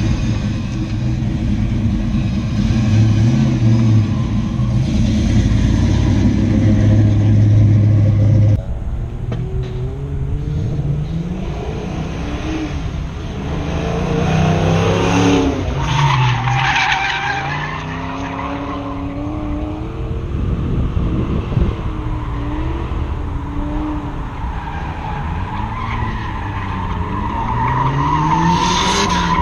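Ford Mustang drift car with its engine revving and tyres squealing as it slides. The engine holds a steady high rev for about eight seconds, then drops off abruptly, and after that the revs rise and fall with the throttle between tyre squeals.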